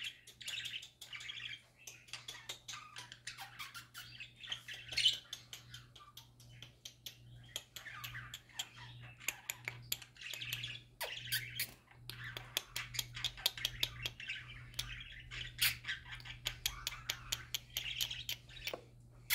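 Pet budgerigars (parakeets) chattering and warbling without a break: a quick run of chirps and squawks with many sharp clicks mixed in.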